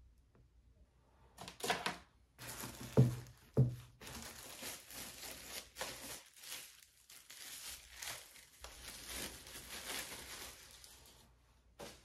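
Packaging being unwrapped by hand: crinkling and tearing of wrap for about ten seconds, with two thuds about three seconds in.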